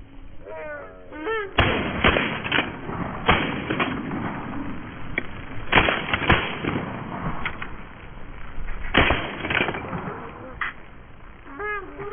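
Shotgun fire at a passing flock of geese: about ten sharp shots, several in quick pairs. Geese honk overhead before the first shot and again near the end.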